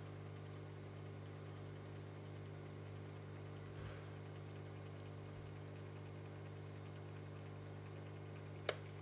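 Steady low electrical hum with several even overtones, and a single sharp click near the end.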